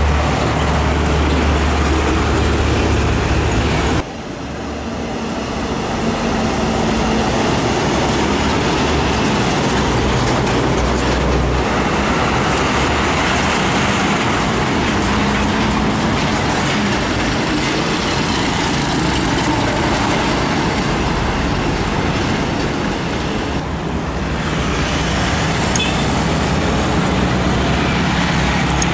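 Heavy diesel trucks driving past on a busy road, with engine drone and tyre and traffic noise. The sound changes abruptly about four seconds in and again near the end.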